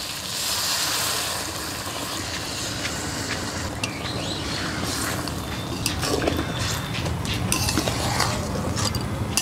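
Water poured into a hot kadai of spiced potatoes and boiled duck eggs, hissing for the first few seconds. A metal spatula then stirs the curry, clinking and scraping against the pan.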